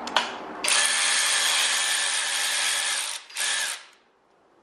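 Cordless power driver on a long socket extension spinning out an engine bolt: one steady whir of about two and a half seconds, then a short second burst.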